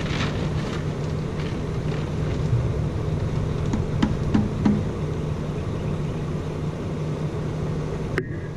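Vehicle engine running steadily with a low hum and some road and wind noise. It cuts off suddenly near the end.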